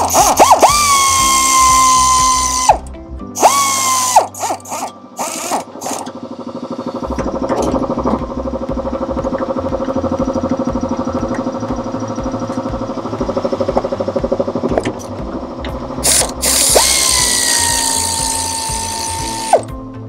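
Cordless power tool's motor whining as it runs out hood bolts: three runs of about two seconds, under a second and about three seconds, each settling quickly to a steady pitch and cutting off sharply.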